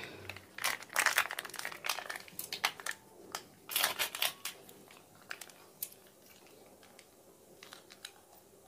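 Plastic soy-sauce sachet crinkling as it is handled and opened: a run of sharp crackles over the first four seconds or so, then only a few faint ticks.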